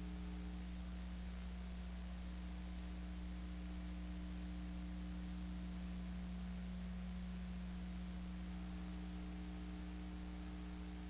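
Steady electrical hum and hiss from an analog videotape recording, with a high-pitched whine that comes in about half a second in and cuts off about eight seconds in. No locomotive or wheel sound stands out.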